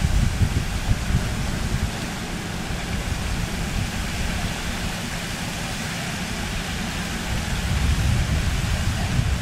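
Wind buffeting the microphone: a gusty low rumble that swells at the start and again near the end, over a steady rushing hiss.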